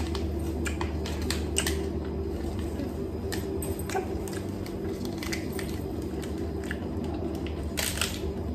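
A person chewing a crunchy snack bar: scattered short crunches over a steady low hum.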